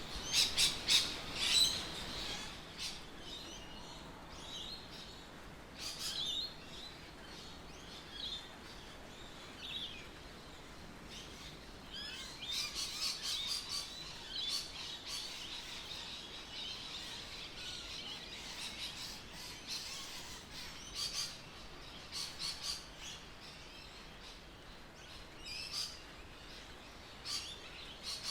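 Birds chirping and calling: many short, high chirps and trills, busiest in the first two seconds and again from about twelve to fifteen seconds in.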